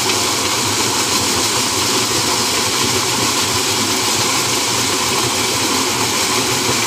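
Tractor-driven Ambica maize sheller running steadily under load as corn cobs are fed into its hopper: the tractor engine's drone blended with the dense, even rush of cobs being threshed and kernels and husk being blown out.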